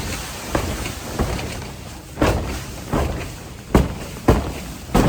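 Plastic shrink wrap over a boat's bow being struck from inside to knock the piled-up snow off it. About seven sharp thumps come at uneven intervals, each trailing off briefly.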